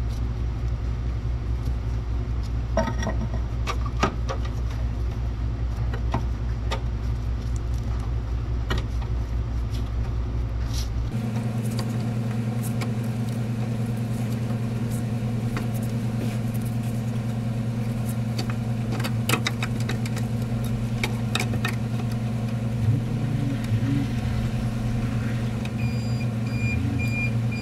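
Small metallic clicks and taps from hand tools and fittings as the brake compensator and its lines are worked into place, over a steady low hum. The hum shifts abruptly to a different pitch about eleven seconds in.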